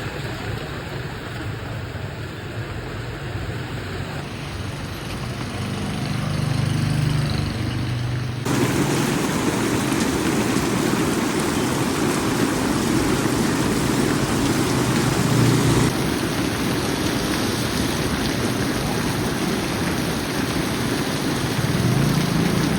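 Heavy rain pouring down, with street traffic running underneath. The rain noise turns suddenly louder and fuller about eight seconds in.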